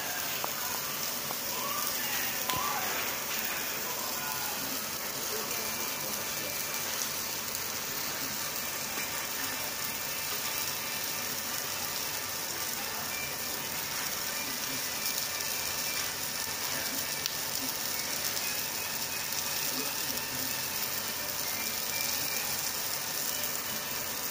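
Hamburg steak and beef sizzling on hot iron serving plates, a steady even hiss.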